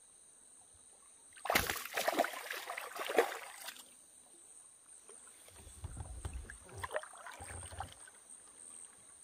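Water splashing loudly beside a kayak for about two seconds, then quieter sloshing with low bumps.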